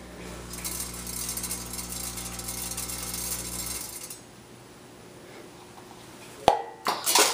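Logical Machines S-4 weigh filler's vibratory feed pan buzzing steadily as seeds trickle off it into the weigh hopper, for a 1-gram dose; the buzz cuts off about four seconds in. A sharp click comes about two and a half seconds later, followed by a brief rattle.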